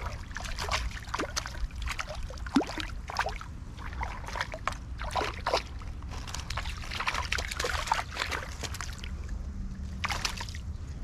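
A small hooked fish splashing at the water's surface as it is lifted out on a hand pole, followed by a string of irregular clicks, rustles and crackles as it is handled in the grass at the water's edge.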